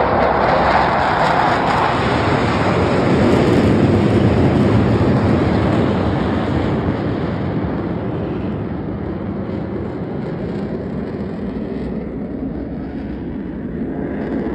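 Jet roar from the Blue Angels' F/A-18 Super Hornets passing overhead in formation, loudest over the first several seconds and then fading steadily as the jets pull away.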